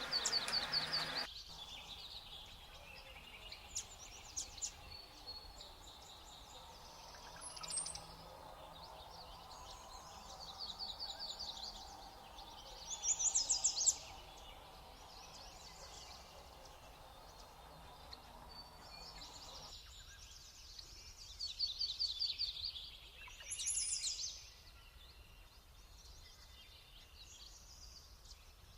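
Small songbirds in a flock calling in repeated bursts of high, fast trills. The loudest bursts come about halfway through and again near the end.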